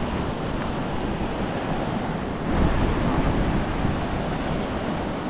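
Ocean surf breaking on a reef, with wind buffeting the microphone: a steady rushing noise, heaviest in the low end, that swells a little about two and a half seconds in.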